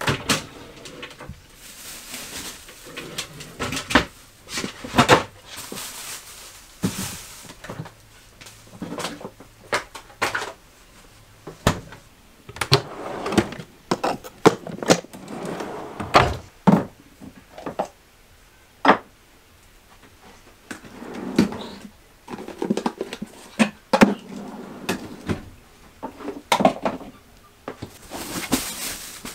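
Kitchen work in a small caravan kitchen: a string of irregular knocks, clicks and clatter as cupboard doors and drawers are opened and shut and cooking things are handled, with rustling in between.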